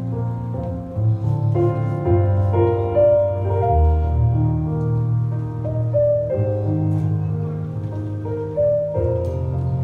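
Slow instrumental processional music on a keyboard: held chords under a simple melody.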